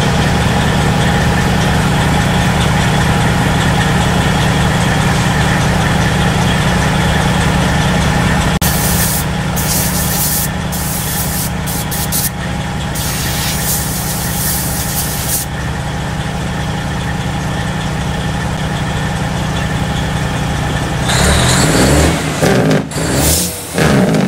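Freightliner Classic XL semi truck's diesel engine idling with a deep, steady rumble. Partway through come several sharp bursts of air hissing, and near the end the engine is revved in a few short, loud blips.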